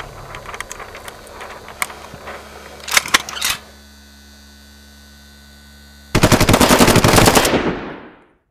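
Several automatic weapons firing together in one long rapid burst of about a second and a half, near the end, fading out to silence. Before it come a few loud sharp clicks about three seconds in and a steady low hum.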